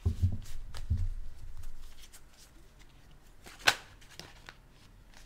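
Oracle cards handled and shuffled by hand: soft knocks in the first second or two, scattered small clicks, and one sharp snap of a card about two thirds of the way through.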